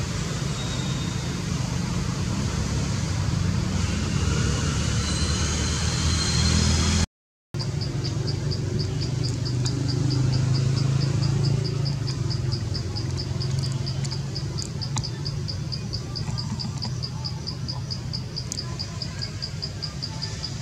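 Outdoor ambience under a steady low rumble. After a half-second dropout about seven seconds in, an insect calls in rapid, evenly spaced high-pitched pulses.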